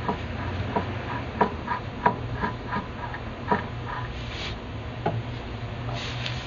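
KENTEC BCL-1 shortwave receiver being tuned by hand: a steady hum and noise from the set, with an irregular run of short clicks and brief chirps as the tuning knob sweeps the band, thinning out after about four seconds.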